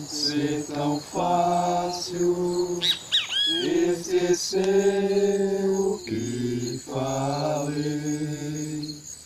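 Men's voices singing a slow song together, holding long notes one after another. A bird calls with a few quick arching chirps about three seconds in.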